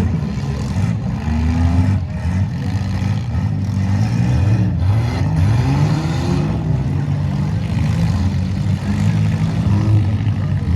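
Several demolition derby car engines revving together, their pitches repeatedly rising and falling over one another.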